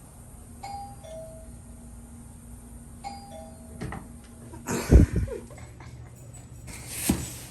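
Two-note ding-dong doorbell chime, stepping down in pitch, rung twice about two and a half seconds apart, followed by a loud thump and then a shorter burst of noise.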